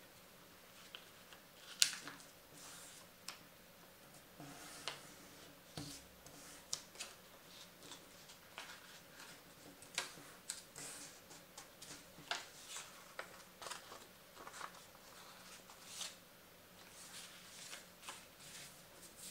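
A sheet of blue origami paper being folded and creased by hand: irregular soft crinkles, rustles and sharp little clicks as the paper is flattened and pressed against a wooden table, the sharpest click about two seconds in.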